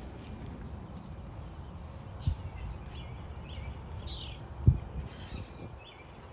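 Songbirds chirping and calling in short high notes, over a steady low rumble. Two short low thumps come about two and four and a half seconds in, the second louder.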